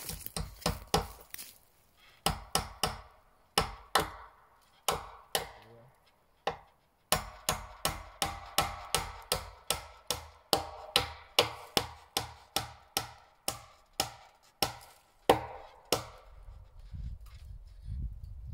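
Repeated sharp blows of a hand tool on wood, each with a short ringing tail. The blows come in short runs of two or three at first, then settle into a steady run of about two a second for some nine seconds, and stop about two seconds before the end.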